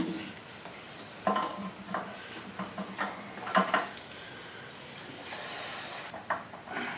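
Gasoline being poured from a fuel can into a Honda Ruckus scooter's tank: a scatter of small clunks and knocks as the can and spout are handled at the filler, and a short hiss of pouring fuel about five seconds in.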